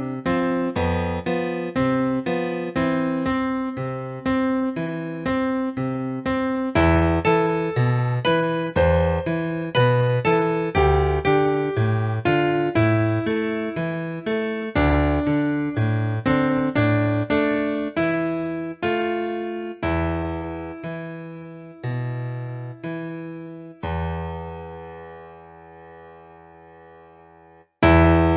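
Piano playing a steady, even-pulsed piece of struck, decaying notes over bass notes. It slows toward the end, closes on a long held chord that dies away, then briefly stops before a new phrase begins.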